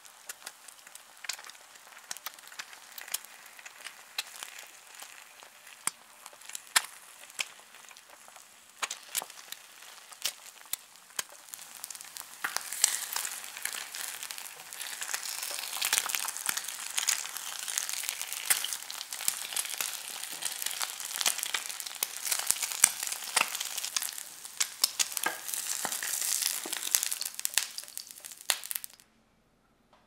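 Egg frying in oil in a nonstick frying pan: a steady sizzle full of small crackles and pops. It grows louder about twelve seconds in and cuts off suddenly near the end.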